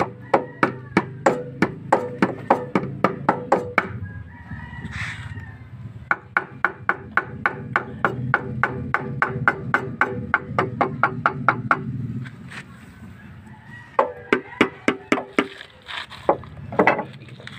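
Rapid tool-on-metal hammer strikes, about four a second, in runs of several seconds with short pauses, as the crankcase side cover of a Sumo Rato 15 hp engine is tapped at its seam to break it loose.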